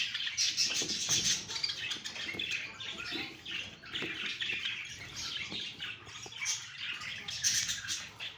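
A group of small pet birds chirping and chattering continuously in many overlapping high calls, with wings fluttering now and then.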